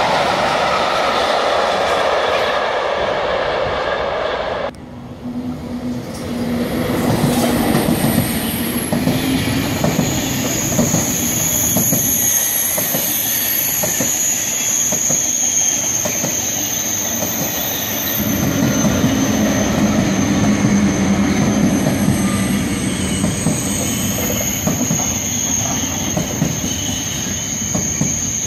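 A freight train of tank wagons rolling past. About five seconds in, the sound cuts to a TGV high-speed train running past, its wheels rumbling and clattering on the rails with a steady high-pitched whine over them.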